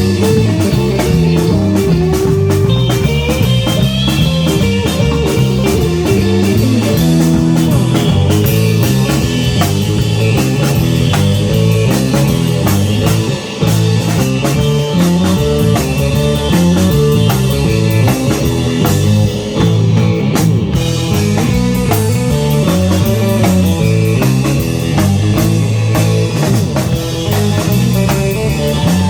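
Live rock band playing an instrumental number on guitar and drum kit, with no singing.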